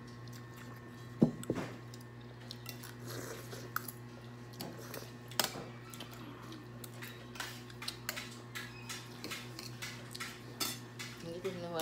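Metal spoons and forks clinking and scraping against plates and a glass serving bowl during a meal, in scattered irregular clicks with the loudest about a second in, over a steady low hum.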